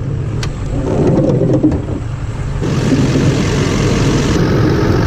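Chevy 2500HD's Duramax LLY turbo-diesel V8 starting up and running, growing louder and fuller about two and a half seconds in.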